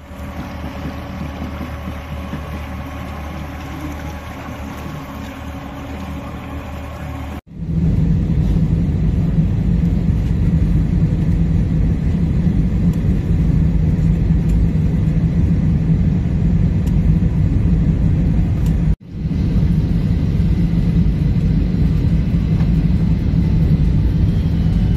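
Motor running steadily for the first seven seconds or so, filmed at water level on muddy floodwater, as from a motorboat. After a hard cut it gives way to a much louder, steady aircraft engine drone heard from inside the cabin, broken by a brief dropout at another cut near the end.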